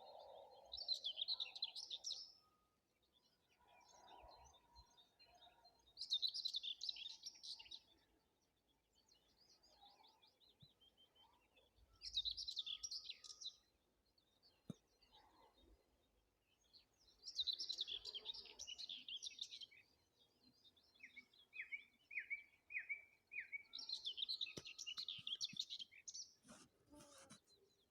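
Songbird singing at dawn, repeating the same short, bright phrase five times, about every six seconds. Another bird gives a quick run of five falling notes about three-quarters of the way through.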